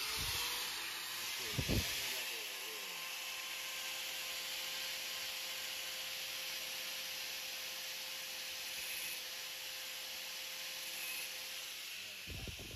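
Small grinder running steadily against the weld on a crankshaft tone ring, a hissing grind that smooths the weld down. There is a low knock about two seconds in and another near the end.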